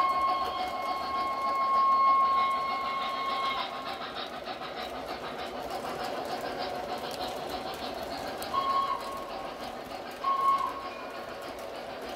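Model train running along the track with a steady rumble, its locomotive's electronic steam whistle sounding one long blast of about three and a half seconds, then two short blasts near the end.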